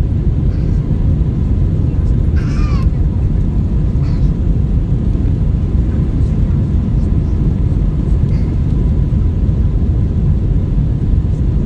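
Steady low rumble of jet airliner engines and rushing air, heard from inside the cabin during the climb after takeoff.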